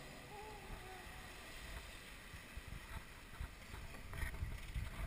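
Wind buffeting the microphone and sea water rushing along a sailboat's hull in a rough sea, the gusty low rumble growing stronger toward the end.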